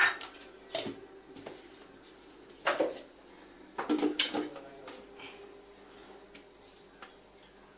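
Scattered knocks and clinks of a stainless-steel mixer-grinder jar and its lid being handled and set onto the grinder's plastic base on a stone countertop.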